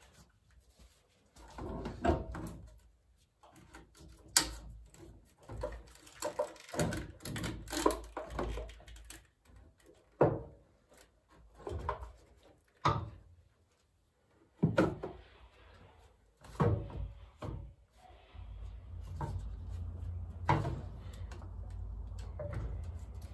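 Irregular knocks, clinks and clatters of metal tools and engine parts being handled during teardown of a petrol engine's cylinder head. A steady low rumble joins in over the last few seconds.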